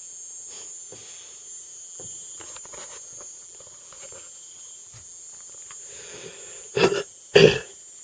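Steady high-pitched chirring of crickets, with faint scattered rustles. Near the end come two loud, sudden noises about half a second apart.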